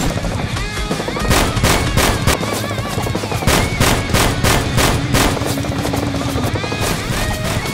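Bursts of rapid gunfire sound effects, several shots a second, over background music.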